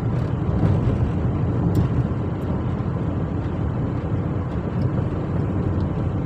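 Car on the move, a steady rumble of engine and road noise. The engine has a misfire on cylinder 1, as the scan tool reports.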